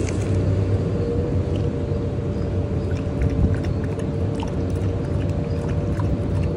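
A steady low mechanical rumble with a constant hum, like a running engine, fills the sound. Over it come faint, irregular wet clicks of a dog lapping water from a plastic cup held in a hand.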